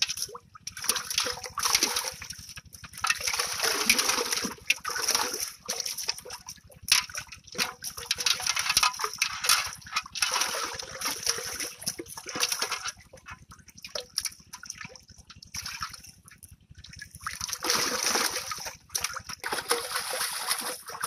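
Water splashing and sloshing in a pot as live fish are dropped in from a cast net and thrash, with hands stirring the water. The splashes come in irregular bursts with short pauses.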